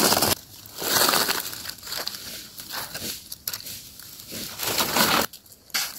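Dry fallen leaves crackling and rustling in irregular bursts as a hand reaches through the leaf litter and picks a mushroom.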